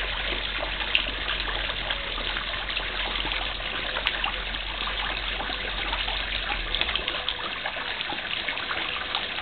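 Water trickling and splashing steadily into a garden pond, with faint scattered ticks of small splashes.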